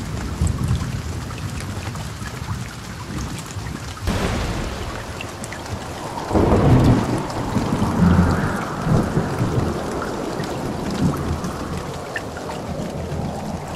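Heavy rain falling with thunder: a steady hiss of rain throughout, and a long low rumble of thunder that rolls in about six seconds in.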